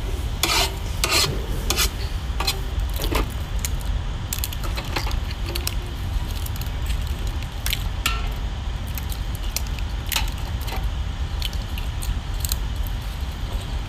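Eggs being cracked against the rim of a bowl: sharp clicks about once a second, fewer in the second half, over a steady low rumble.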